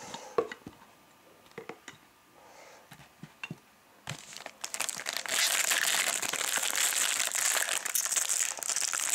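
A few light clicks of plastic card cases being slid aside, then, about four seconds in, a foil trading-card pack crinkling steadily as it is picked up and handled for opening.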